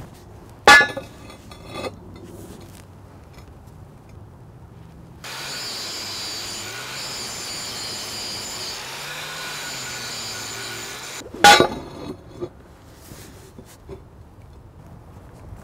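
Angle grinder grinding the edge of a steel box for about six seconds, starting and stopping abruptly, to fit it to a steel plate. Two sharp, loud metal clanks from the steel parts being handled come about a second in and again just after the grinding stops.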